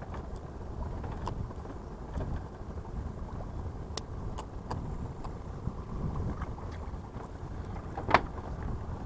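Steady low wind rumble on the microphone, with a few sharp small clicks and a louder knock about eight seconds in.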